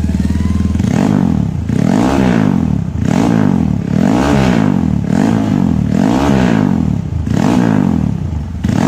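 Honda CRF150's single-cylinder four-stroke engine, bored and stroked up to 230 cc and breathing through a new GP7 aftermarket exhaust, running on the test after the rebuild. It idles briefly, then is revved in short blips about once a second, each rising and falling in pitch.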